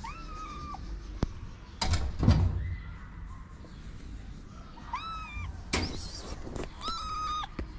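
Kitten meowing three times in short, high calls: one at the start, one about five seconds in and one near the end. A loud rustling thump about two seconds in is the loudest sound.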